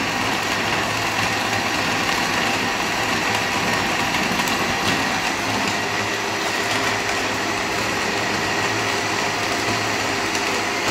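Geepas countertop blender's motor running steadily at one speed, blending a fruit mixture in its jug.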